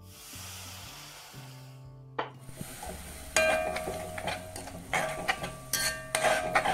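Water hitting a hot kadai of onion masala sizzles with a steady hiss for about two seconds. From about three seconds in, a metal spatula scrapes and clinks against the pan as the masala is stirred.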